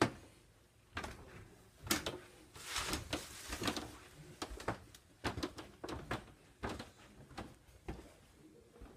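Footsteps going down a flight of indoor stairs: a sharp knock at the start, then a run of uneven thumps and scuffs with some rustling.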